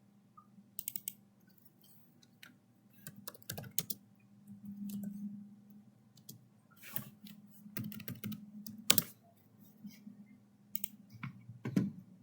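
Irregular taps and clicks of a computer keyboard being typed on, the loudest about nine seconds in, over a faint steady low hum.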